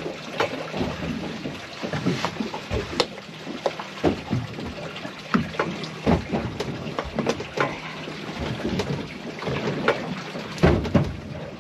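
Water splashing irregularly against the boat's side as a hooked, shot lemon shark thrashes at the surface, with a louder splash near the end.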